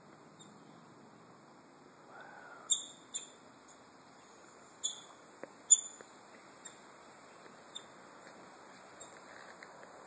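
A series of short, sharp, high-pitched animal chirps. A few loud ones come between about two and six seconds in, then fainter, more widely spaced chirps follow, over a faint steady hiss.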